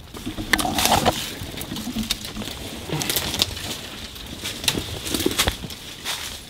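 Footsteps crunching through dry fallen leaves and snapping twigs, with brush scraping past, in an irregular run of crackles.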